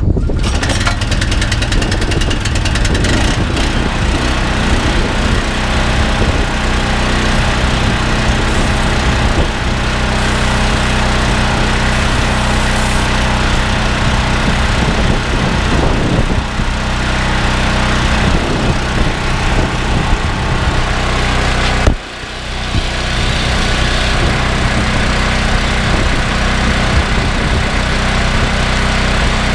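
Loncin G420 single-cylinder petrol engine of a belt-driven pressure washer starting up and then running steadily, driving the pump while the high-pressure lance sprays. The level drops briefly about three-quarters of the way through, then the engine runs on.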